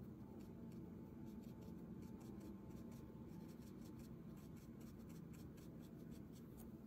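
Fine watercolor brush stroking and dabbing on paper: faint, quick scratchy ticks, several a second, over a steady low hum.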